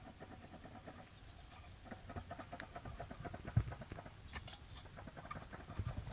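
Cooling fan of a Mitsubishi 360's ME24 engine rocked back and forth by hand, giving a fast, light rattle of small clicks from play in the fan and its drive, with one heavier knock about halfway through. The owner suspects this play may be behind the engine's piston-knock noise.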